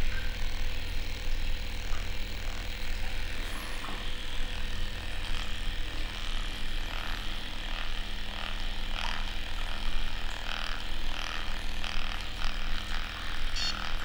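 Handheld vibration-and-magnet therapy device buzzing steadily with a low, even hum as it is pressed against the jaw muscle.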